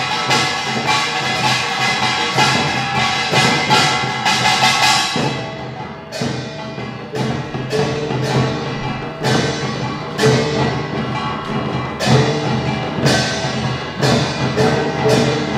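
Utdari samul nori ensemble playing: kkwaenggwari small brass gongs clattering with janggu hourglass drums, buk barrel drums and jing gong. About five seconds in, the dense rapid gong playing thins out into spaced, accented strokes in a steady rhythm.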